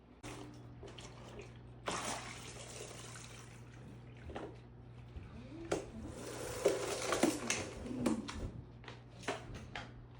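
Water running from a tap in two spells of a second or two each, with knocks and clatter of handling between them, over a steady low hum.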